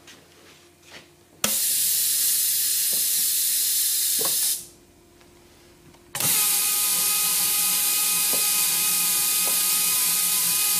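Pneumatic TSV-150 safety-valve lapping machine starting on compressed air: a loud hiss comes on suddenly for about three seconds and cuts out. About a second and a half later it comes on again and runs steadily, now with a faint whine over the hiss, as the air motor turns the lapping disc on the valve seat.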